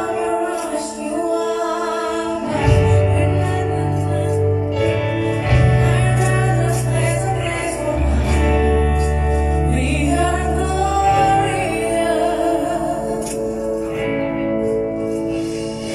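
A live band playing with a woman singing the lead melody over sustained chords; a deep bass line comes in about three seconds in.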